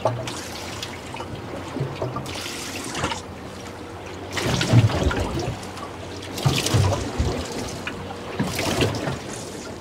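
Water lapping and slapping against the hull of a drifting boat, in surges every second or two, the biggest about halfway through.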